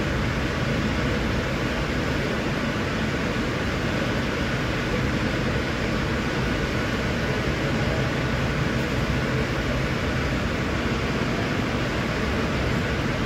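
Steady rushing background noise at an even level, with no distinct knocks, clicks or rhythm.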